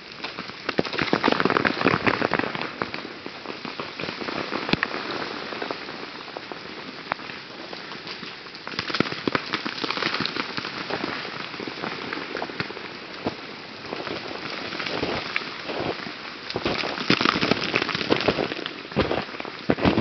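Ice breaking off glazed tree branches and falling through the woods: a continuous clatter of many small hard ticks and cracks. It grows busier about a second in, again around ten seconds, and near the end.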